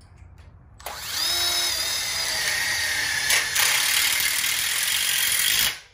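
Cordless power driver driving a screw into galvanized steel frame tubing. The motor starts about a second in, runs steadily for nearly five seconds with a couple of clicks midway, and stops suddenly near the end.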